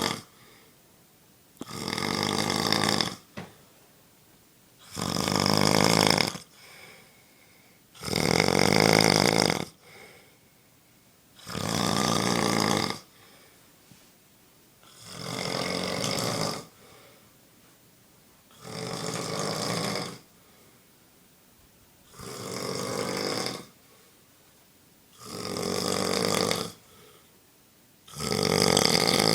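Steady, regular snoring: about nine snores, each lasting a second or so and coming about every three and a half seconds, with quiet breaths between them.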